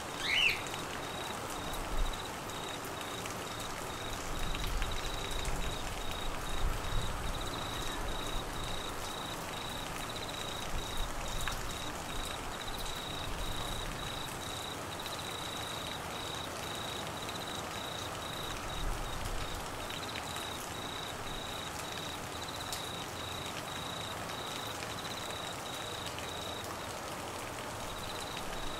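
Steady monsoon rain falling on trees and grass, with a cricket trilling on one high pitch in quick pulses that stops shortly before the end. A brief high chirp sounds right at the start.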